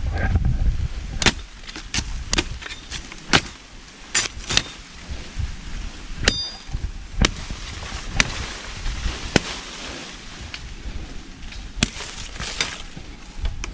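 Cutting tool chopping into tree limbs: a dozen or so sharp strikes at an irregular pace, with a low rumble from wind or handling in the first second.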